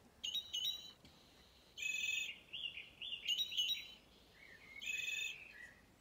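Recorded song of a song thrush played from the small speaker inside a soft-toy bird: a string of short, high, varied phrases with brief pauses between them.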